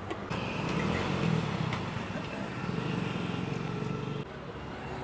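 A motor vehicle's engine running nearby, a steady low hum that drops away sharply about four seconds in.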